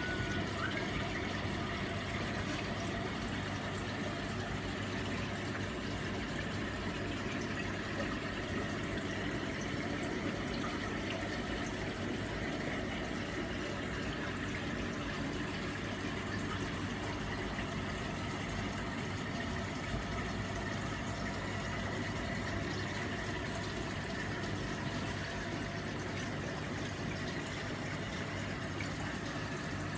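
Reef aquarium coral frag system running: a steady rush and trickle of circulating water with a low, even pump hum.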